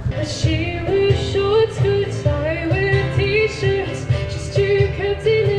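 Live song from a small outdoor stage: a singer's melody over acoustic guitar, amplified through a PA, with a steady low beat underneath.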